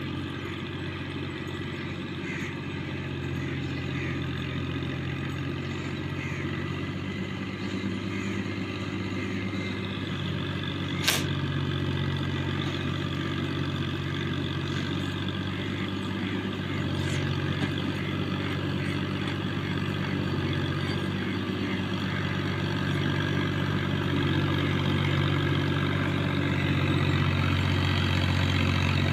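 Fiat 480 tractor's diesel engine running steadily as it pulls a heavily loaded trolley, growing gradually louder as it approaches. A single sharp click about eleven seconds in.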